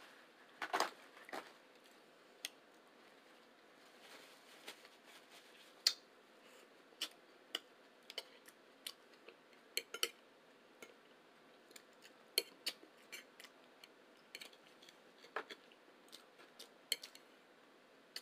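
Eating sounds at a breakfast table: scattered sharp clicks of cutlery against plates and mouth smacks, irregular, about one or two a second, with a louder clatter about a second in.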